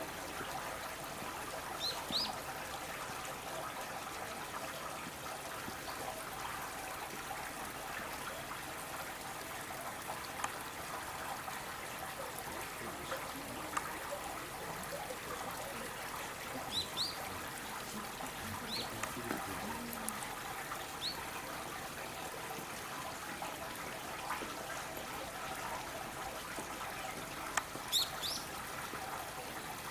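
Steady trickling water, with a few short high chirps of small birds, some in quick pairs, about two seconds in, around seventeen to twenty-one seconds, and near the end.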